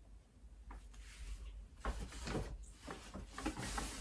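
Faint rustling and handling of a brown paper shopping bag, starting about two seconds in, in small irregular scrapes and crinkles.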